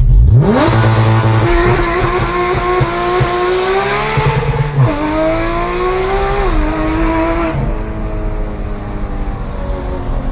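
Porsche 911 GT3 RS with JCR aftermarket exhaust, its naturally aspirated flat-six revving up sharply and pulling hard through the gears. The pitch climbs steadily and drops with a quick upshift about five seconds in, then again about a second and a half later.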